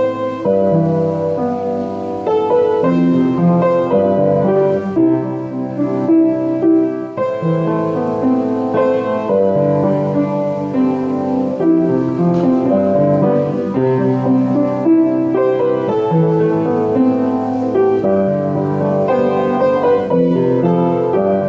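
Background music led by piano, a steady flow of notes with a soft classical feel.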